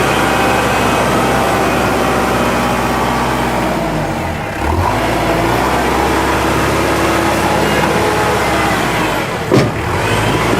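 Kubota L5740 tractor's diesel engine running steadily, its pitch dipping briefly about four seconds in. A short thump comes near the end.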